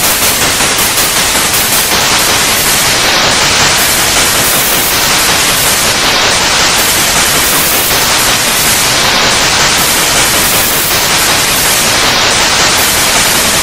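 Loud, steady TV static: a dense white-noise hiss.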